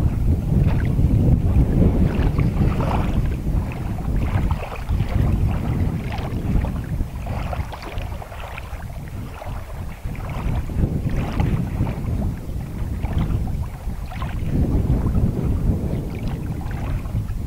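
Wind buffeting the microphone: a loud, low rumble that swells and dips in gusts.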